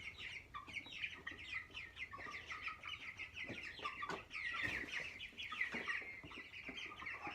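A flock of young broiler chickens peeping continuously, many short high cheeps overlapping, with a few soft knocks among them.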